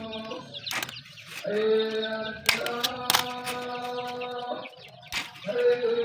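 Hand staple gun clacking about four times as it drives staples through chicken wire into a wooden frame, over background music with long held notes.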